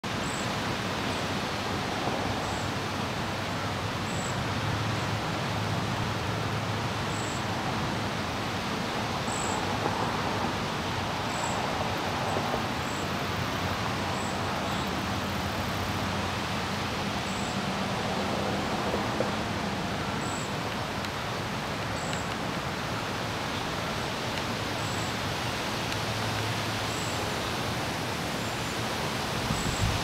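Steady outdoor noise, an even hiss across the field, with faint short high chirps from small birds every second or two.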